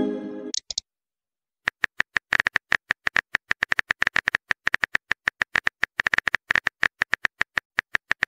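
Texting Story app's typing sound effect: rapid short clicks, each with a small tone, about eight a second, as a message is typed out letter by letter. Just at the start, the tail of a short chime from a message arriving, then about a second of silence before the typing begins.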